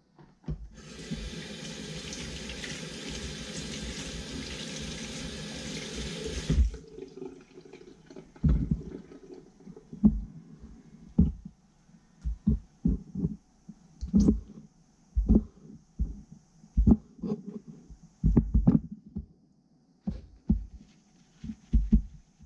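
Kitchen tap running into the sink for about six seconds, then shut off abruptly. After it comes a string of separate knocks and thuds as the fish and knife are handled on a cutting board.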